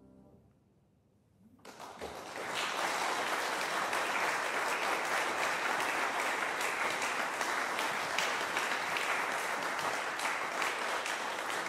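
A brief hush, then audience applause breaks out about two seconds in and continues steadily.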